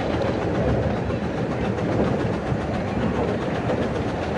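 15-inch gauge miniature steam train in motion, heard from a passenger car behind the locomotive: steady running noise of the wheels and cars on the track.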